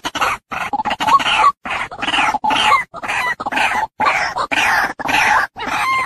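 White-breasted waterhen (ruak-ruak) calling in a rapid, unbroken series of rough, repeated calls, about two a second. This is a lure recording played to draw the birds to a trap.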